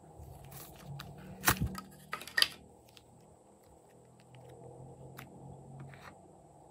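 Handling noise from a decorated cake-slice box being worked open and its clay slice pushed into a glass bowl: a few sharp crackles and clicks, loudest about one and a half and two and a half seconds in, then light scattered taps.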